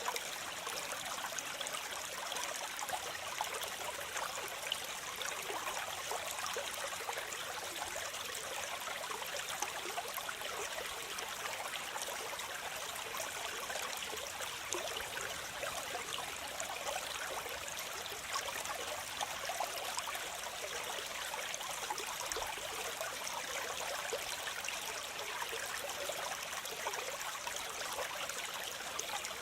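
Waterfall cascading water, a steady hissing splash with little deep rumble.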